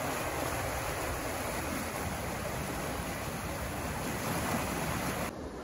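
Floodwater rushing and churning as it pours from a drainage outfall into the swollen river, a steady dense roar of water that cuts off abruptly near the end.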